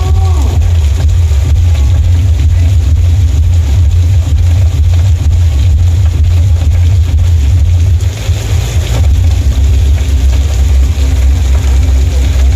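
Very loud, distorted low bass from a carnival sound system, steady throughout and overloading the recording.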